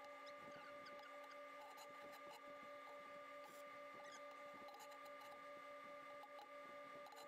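Near silence: a faint steady hum with a few faint ticks.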